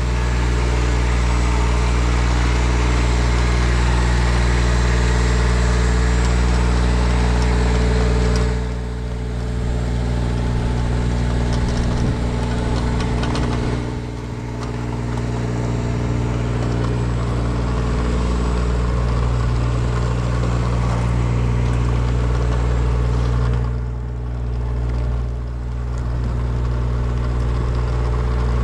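Engine of a hot-tar crack sealing machine running steadily, with a loud hiss over it that dips away about a third of the way in, around halfway, and again near the end.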